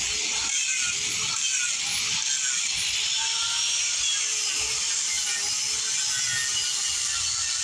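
Angle grinder fitted with a chainsaw-chain carving wheel cutting into wood: a steady, dense hiss of chips being torn off, with the motor's whine wavering in pitch as the load changes.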